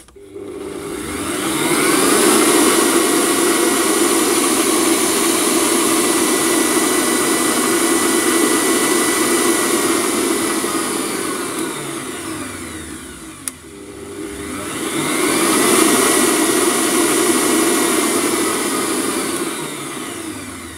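Kenwood Chef stand mixer's 1400 W motor whirring with the balloon whisk spinning in an empty steel bowl as the speed dial is turned. It speeds up over about two seconds, runs steadily, winds down with a click about two thirds of the way in, then speeds up and slows again near the end.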